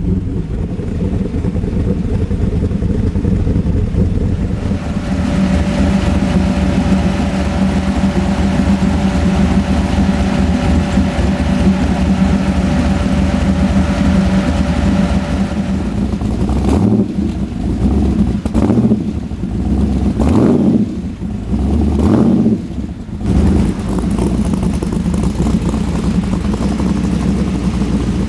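Custom 7.0-litre (427) V8 in a Chevrolet Silverado street truck, running steadily with a thin whine over the engine note, then blipped about four times in quick succession past the middle and settling back to a steady idle.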